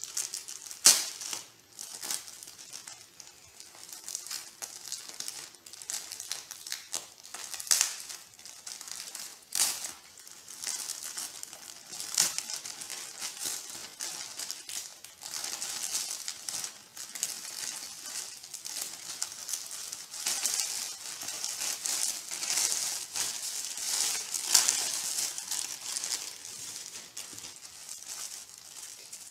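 Plastic courier mailer bag crinkling and rustling as it is opened and handled, with sharp crackles, the loudest about a second in; the polo shirt's clear plastic sleeve crinkles as it comes out.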